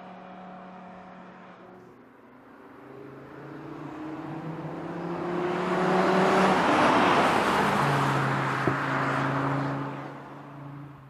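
Audi RS 3's turbocharged 2.5-litre five-cylinder engine accelerating as the car drives past. Its note climbs and grows louder as it approaches, then drops and fades as it goes away. A single sharp crack from the exhaust comes just after the loudest moment.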